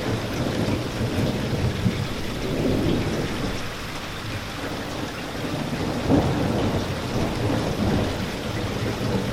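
Heavy rain falling steadily over a continuous low rumble, with one brief louder crack about six seconds in.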